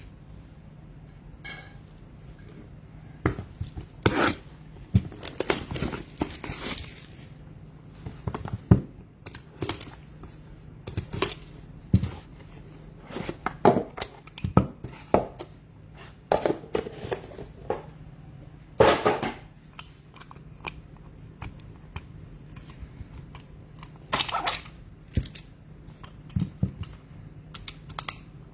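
Trading card packs being torn open and handled: foil wrappers tearing and crinkling, with irregular clicks and rustles of cards being slid and shuffled.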